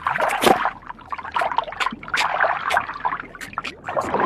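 Underwater water sounds: bubbling and trickling, with many short sharp clicks.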